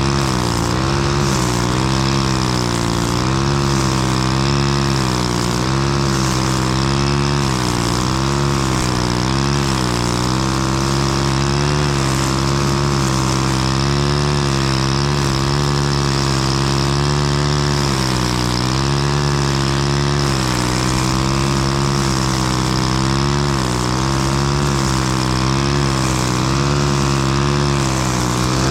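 Lawn mower engine running steadily at constant throttle, its pitch wavering slightly.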